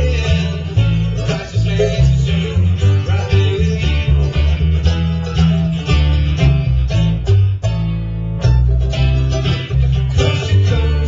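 Live acoustic bluegrass: mandolin, acoustic guitar and upright bass playing together, with the bass notes loudest.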